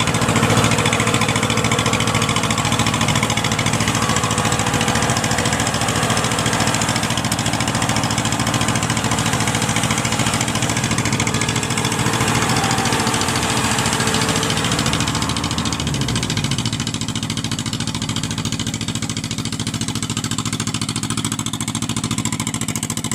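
Diesel engine of a rice combine harvester running steadily, with a low, even drone. About sixteen seconds in it eases off slightly and the pitch shifts.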